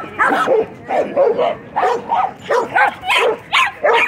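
Several dogs barking at each other across a fence line in short, rapid barks, about two to three a second.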